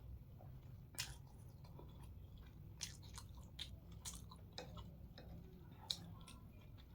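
A person chewing a mouthful of hakka noodles close to the microphone: soft wet mouth clicks and smacks, the sharpest about a second in and near six seconds in, over a faint steady low hum.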